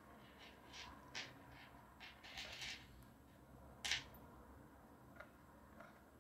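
Faint, soft rustles and swishes of hands handling a crocheted chenille-yarn toy and its sewing thread, several short brushes with the clearest one about four seconds in.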